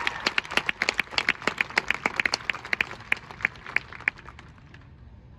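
Audience applause in a stadium crowd, individual sharp claps standing out, thinning and dying away about four to five seconds in.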